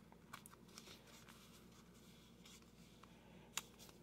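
Near silence broken by faint rustling and a few light ticks of a trading card being handled in a clear plastic sleeve, with one sharper click about three and a half seconds in.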